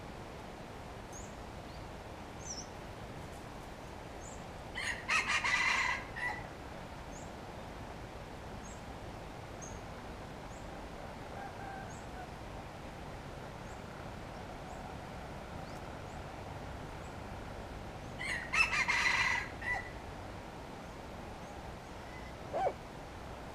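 Red junglefowl rooster crowing twice, each a short crow of about a second and a half, the two some thirteen seconds apart. Small birds chirp faintly in the background, and there is one brief sharp sound near the end.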